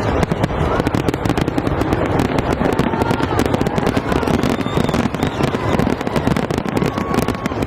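Aerial fireworks going off in rapid, continuous succession: a dense stream of bangs and crackling with no let-up.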